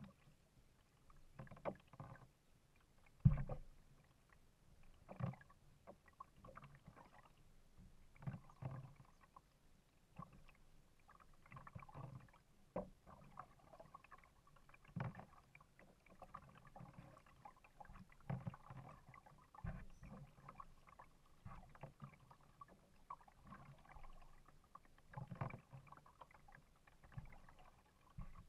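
Kayak paddle strokes: water splashing and dripping off the paddle blades in irregular strokes every second or two, with one sharper thump about three seconds in.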